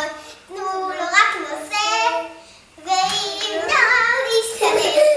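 Two young children singing together in high voices, breaking off briefly about two and a half seconds in.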